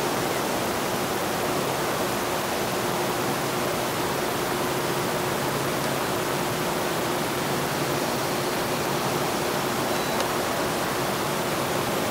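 Steady, even hiss with a faint steady hum underneath, unchanging throughout.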